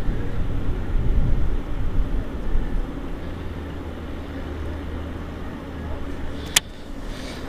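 Wind buffeting the microphone for the first couple of seconds, then a steady low engine hum from about three seconds in, with one sharp click near the end.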